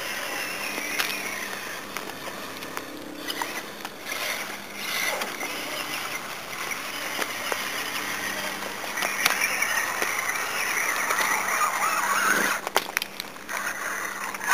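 Traxxas Summit RC truck's Mamba Monster brushless electric motor running as the truck drives through water, with the churn and splash of its spinning tyres. It swells for a few seconds about two-thirds of the way in, then cuts back sharply shortly before the end.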